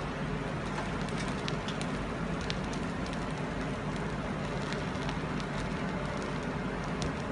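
Automated cartridge assembly machinery running: a steady mechanical hum and hiss with many light, irregular clicks and ticks from parts and grippers.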